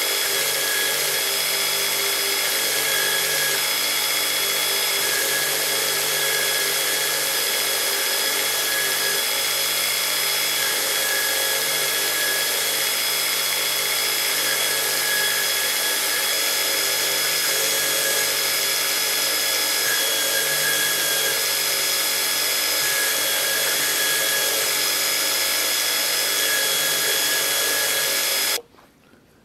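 Belt grinder running steadily as a sword blade is ground on its abrasive belt: an even grinding hiss with a thin steady whine over it. It stops abruptly near the end.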